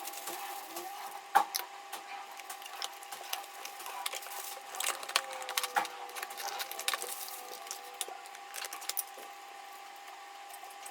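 Packaging handled during an unboxing: irregular crinkles, crackles and clicks, with one sharp click about a second and a half in.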